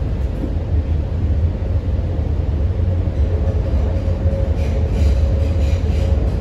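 MTR C-train metro car running through a tunnel, heard from inside the car: a steady, heavy low rumble of wheels and running gear. A faint steady whine joins about halfway through.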